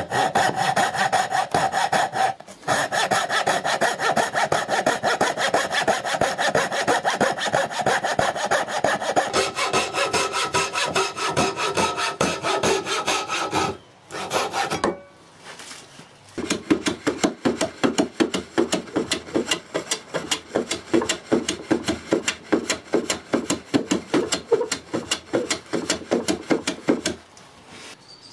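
Coping saw cutting spalted beech by hand with rapid back-and-forth strokes. It breaks off briefly about halfway, then goes on with slower, even strokes until shortly before the end.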